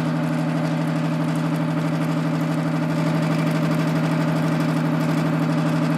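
12-volt gear pump running steadily with an even hum, under load as it pumps old hydraulic fluid out of a reservoir.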